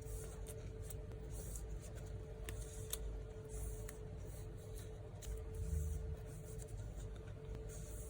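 Photocards and their plastic sleeves being handled and packed: rustling and crinkling, with scattered light clicks and taps.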